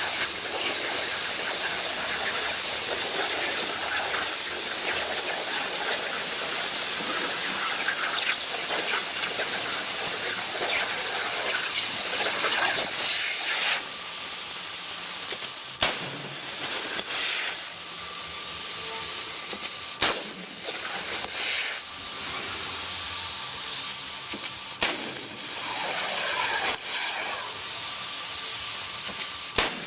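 CNC plasma cutter's torch running with a steady hiss of the cutting arc and air over a water table. In the second half a faint steady tone joins in, and there are sharp clicks every four to five seconds.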